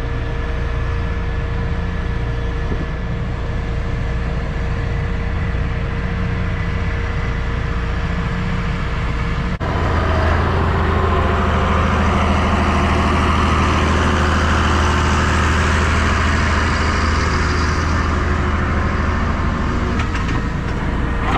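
Case IH 1640 combine running steadily with a low engine drone. About ten seconds in, the sound abruptly turns louder and hissier, with much more high-pitched rushing noise.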